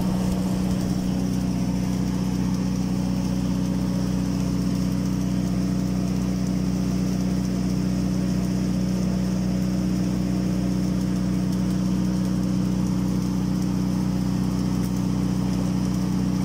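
Automatic submerged-arc girth welding machine running along a tank seam: a steady, even low hum.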